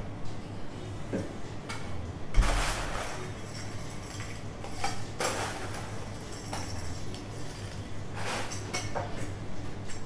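Utensils and drink containers clinking and clattering as bubble tea is made: a metal utensil and a pitcher handled at the counter. There are a few short bursts of clatter, the loudest with a knock about two and a half seconds in, over a steady low hum.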